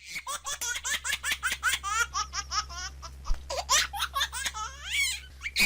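High-pitched laughter: a quick run of short laughs, about five a second, slowing and breaking up over the last few seconds.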